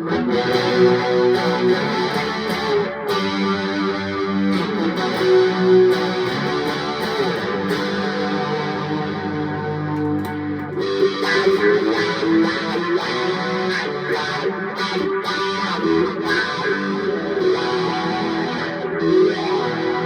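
Electric guitar played through a board of effects pedals, a continuous run of chords and single notes with overdrive and distortion. The tone turns brighter about eleven seconds in.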